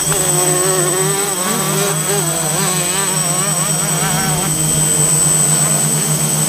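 Multirotor drone's motors and propellers humming steadily at close range, with a high steady whine above the hum. Motocross bike engines rev up and down underneath.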